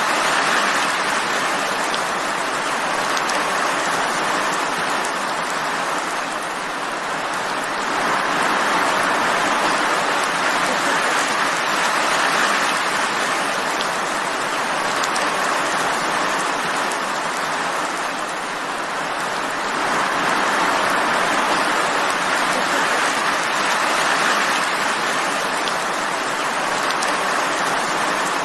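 Steady rain falling: a dense, even hiss of drops that swells and eases slowly every several seconds, with small drop ticks scattered through it.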